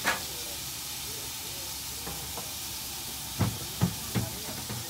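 Aged beef fillet steak sizzling on a hot griddle with a steady hiss, broken by a sharp clatter at the start and three or four sharp knocks about three and a half to four and a half seconds in.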